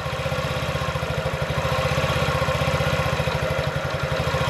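Honda Ruckus NPS50's 50cc four-stroke single-cylinder engine idling steadily at about 2,000 RPM, its idle screw just set down from a far too high idle.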